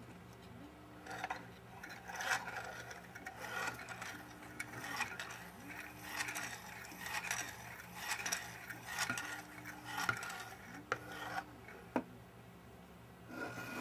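Hand-cranked 3D-printed gear-and-slider mechanism running: plastic spur gears and a slider rubbing on their rods make a rasping in repeated strokes about once a second, with two sharp clicks near the end.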